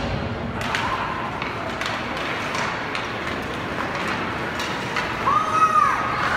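Game ambience in a hockey arena: a steady hum of distant voices with scattered knocks, and a single shout that rises and falls about five seconds in.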